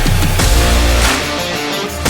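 Background music: a driving, guitar-led track with heavy bass hits and sustained notes.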